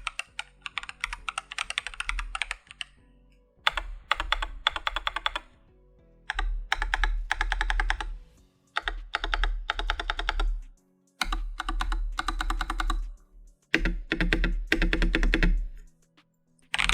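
AKKO 3087 RF mechanical keyboard being typed on, then from about three seconds in, five separate runs of rapid presses, each about two seconds long: a stabilizer test on the long stabilized keys. Faint background music plays underneath.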